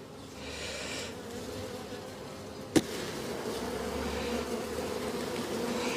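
Honeybees buzzing in a steady hum around an open hive, a little louder in the second half: the colony is stirred up after a frame has been shaken. One sharp knock about three seconds in.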